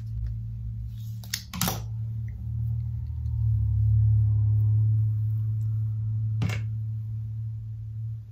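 A low steady hum that swells around the middle, with two sharp clicks, one about a second and a half in and one about six and a half seconds in.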